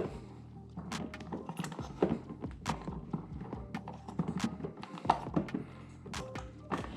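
Irregular clicks and knocks, roughly one or two a second, of a small hand tool tightening a nut on the axle of a plastic ride-on toy truck's rear wheel.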